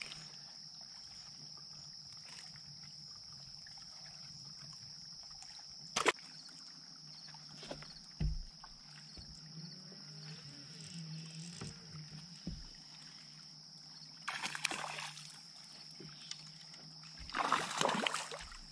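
A hooked bass splashing at the surface beside the boat, once about fourteen seconds in and again, louder, near the end. Under it runs a steady high whine and low hum from the bass boat's electric trolling motor, with a single sharp knock about six seconds in.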